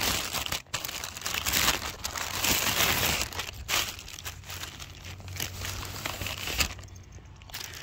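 Thin plastic packaging crinkling and rustling as it is handled and pulled open by hand; the rustling dies down about seven seconds in.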